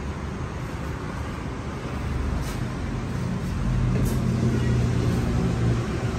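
Steady road-traffic rumble, with a passing vehicle's low engine hum growing louder from about two seconds in.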